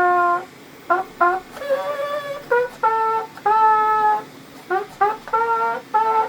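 3D-printed rectangle trumpet, made mostly of PETG plastic with a metal mouthpiece, playing a melody. It plays a string of separate notes, some short and tongued and some held for about a second, with brief breaks between phrases. Its tuning is still not perfect.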